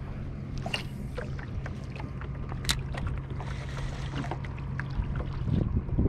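A small fishing boat rocking on rippled water, with water sounds, a steady low hum and a few sharp ticks.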